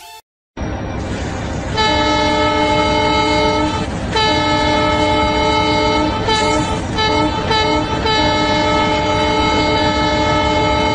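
A loud multi-tone air horn blows in long held blasts over a low engine rumble, starting about two seconds in, with a run of shorter toots in the middle.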